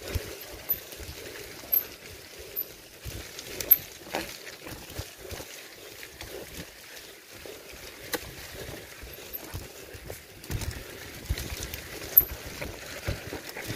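A bike jolting fast down a rough dirt trail: irregular knocks and clatter as it hits bumps, over a low rumble of tyres and wind. The sharpest knocks come a little under four seconds in and again near the end.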